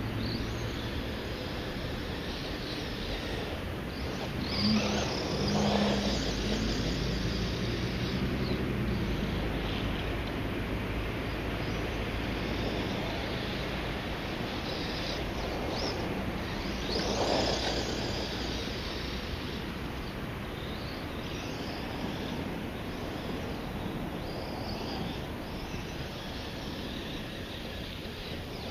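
Distant brushless-motor RC car running on grass, its electric motor whine rising and falling in bursts as it speeds up and slows down, loudest about five and seventeen seconds in, over a steady outdoor hiss.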